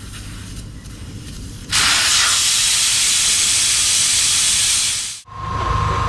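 A loud, steady hiss of air rushing out of a car tire, starting abruptly about two seconds in and cutting off after about three seconds: the tire on a BMW alloy wheel being let down before it is taken off the rim.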